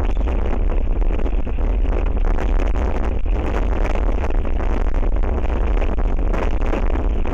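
Strong gusting wind buffeting the microphone with a loud, steady low rumble.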